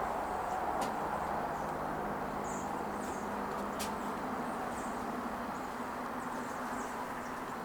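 Steady outdoor background noise with faint, short, high chirps from a large flock of birds passing overhead, and a low steady hum that comes in about a second in.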